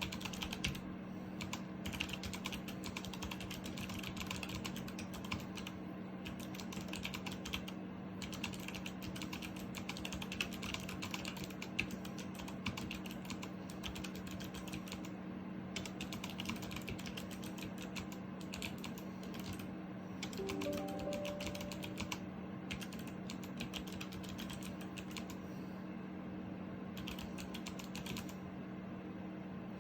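Clicky mechanical key switches of a Logitech MX Mechanical Mini keyboard clicking in quick runs of keypresses with short pauses, typing that tries out a faulty T-key switch which only registers sometimes. A steady low hum runs underneath.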